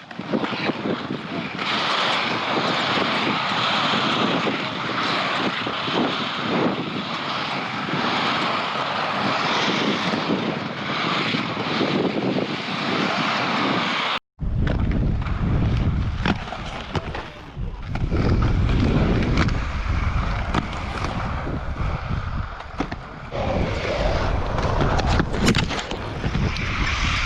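Inline skate wheels rolling over skatepark concrete, a steady rolling rumble mixed with wind on the microphone, with a few sharp knocks near the end. The sound drops out abruptly about halfway through, then comes back with a heavier low rumble.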